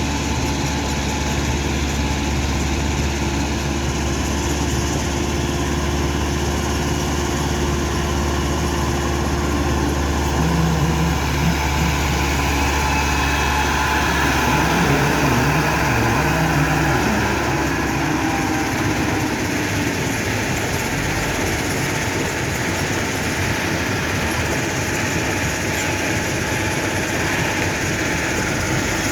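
Stone-crushing machinery running steadily: a continuous low mechanical drone with an engine hum whose pitch wavers for several seconds in the middle.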